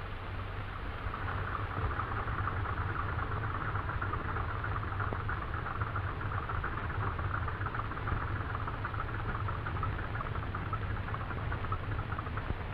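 Aircraft engines running steadily, a continuous band of engine noise that builds about a second in and eases near the end, over a steady low hum.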